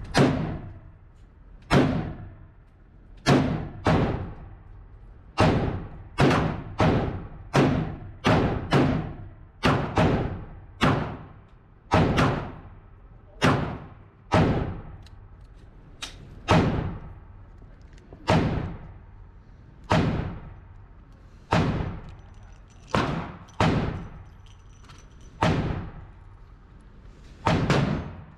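Handgun shots on an indoor shooting range, fired at an uneven pace of about one a second. Each is a sharp report with a short echoing tail.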